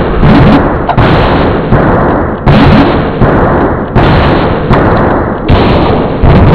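Remixed audio of heavily distorted, clipped sample chops, each cut off abruptly and restarted about every three-quarters of a second in a steady beat, about nine times.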